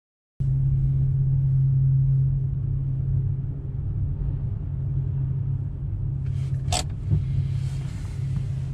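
Steady low engine drone with a constant hum on a ferry's enclosed car deck, and a single sharp knock near the end.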